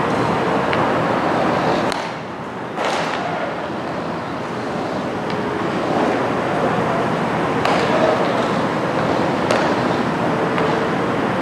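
Steady hubbub of a crowd of onlookers, with voices blurred together and a few sharp knocks standing out here and there.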